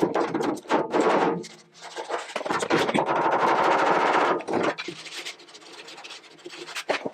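Steel car bonnet being knocked from the inside with a panel-beating dolly to work out a dent: a quick run of light metal knocks, then a couple of seconds of steady rubbing across the metal, then a few faint taps.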